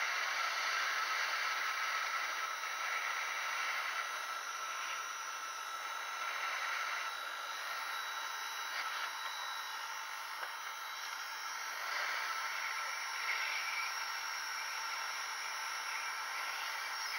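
Hot air gun blowing a steady hiss of air while heating a chip on a laptop motherboard.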